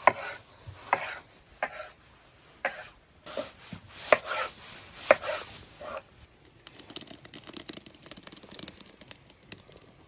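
Kitchen knife slicing tomatoes on a wooden cutting board: about ten sharp, unevenly spaced knocks of the blade through the fruit onto the board over the first six seconds. After that comes a quieter, fast rasping.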